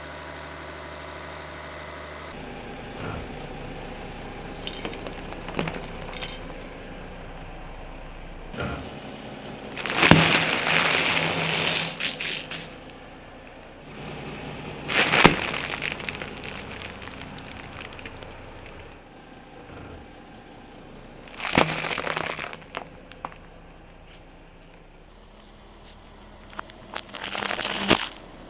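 Car tyre rolling over and crushing bagged snacks, a bag of marshmallows among them: four loud bursts, each opening with a sharp pop of the bag and crackling plastic for a second or two, with a few smaller crackles before them. The car's engine runs quietly underneath.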